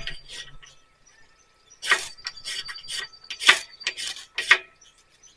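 Ferrocerium rod struck with a steel scraper, a run of about seven quick, sharp scrapes testing that it throws sparks.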